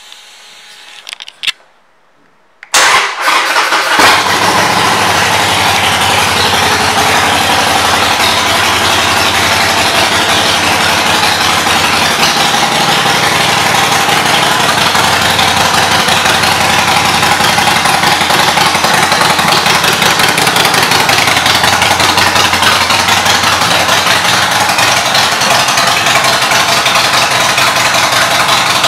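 2015 Harley-Davidson Forty-Eight's air-cooled 1200 cc V-twin, fitted with aftermarket Vance & Hines pipes, is started about three seconds in, then runs loud and steady at idle.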